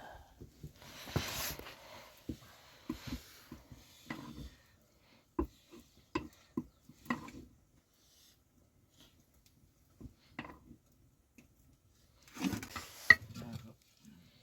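Scattered light clicks and knocks of dishes and utensils being handled during a meal, with a brief rustle about a second in and another near the end.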